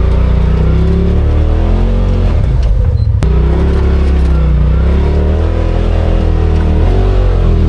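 Side-by-side UTV engine pulling up a trail, its pitch rising and falling as the throttle is worked. About three seconds in, the power drops briefly and there is a sharp click.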